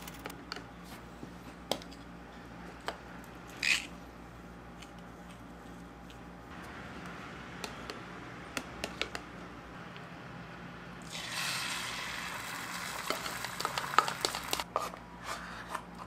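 A spoon beating eggs in a small bowl, with scattered light taps against its side. About eleven seconds in comes a few seconds of louder hissing noise with more taps, as the beaten egg goes into a small electric pot.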